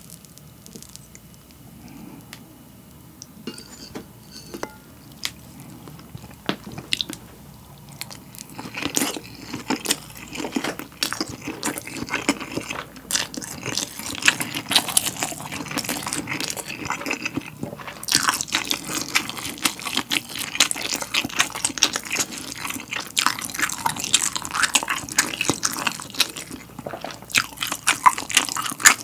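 Close-miked eating of a soft egg-and-rice dish with sauce: it starts quietly with a knife and fork cutting into it, then from about eight seconds in turns to loud, wet chewing with many clicks.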